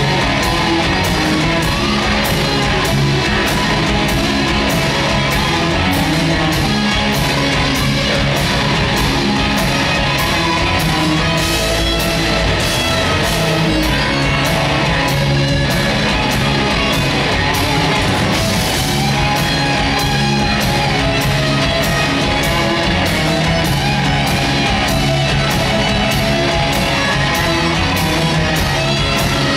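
Rock band playing live: distorted electric guitars over bass and a steady drumbeat, loud and continuous.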